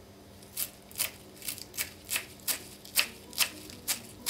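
Kitchen knife chopping on a cutting board in quick, steady strokes, about three a second, starting about half a second in: mincing raw chicken.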